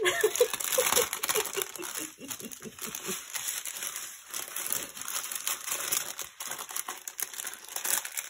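Clear plastic bags of diamond-painting resin drills crinkling and rustling as they are handled and pushed back into their plastic packet. A continuous crackly rustle, busiest in the first second or so.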